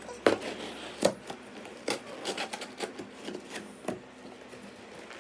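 Irregular clicks, scrapes and rustles of a parcel bag being handled and torn open, about seven sharp strikes in all.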